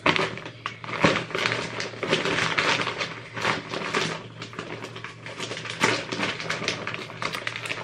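Plastic mailer bag being handled and opened, crinkling and rustling in quick, irregular crackles, over a faint low steady hum.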